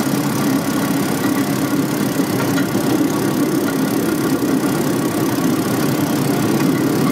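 Small engine of a motorized rail cart (draisine) running steadily under way along the track.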